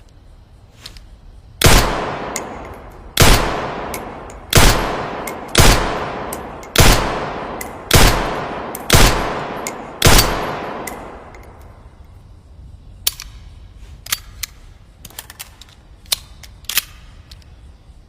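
Handgun firing eight single shots, one every second or so, each followed by a long echoing tail. After them comes a scatter of light clicks.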